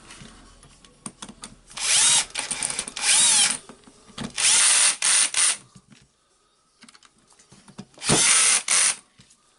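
Power screwdriver driving the screws that close a cordless drill's plastic housing, in four short bursts of motor whine that rises and falls in pitch, with light clicks between the bursts.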